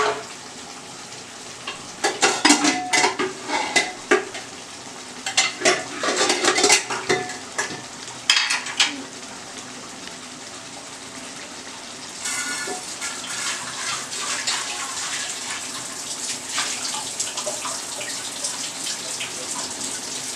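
Steel kitchen utensils clattering and clinking in irregular bursts, then about twelve seconds in a water tap is turned on and runs steadily.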